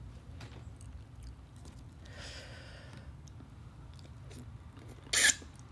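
Close-miked eating sounds of a whole butter garlic shrimp: faint clicks as it is peeled by hand, then biting and chewing. One short, loud sound comes about five seconds in.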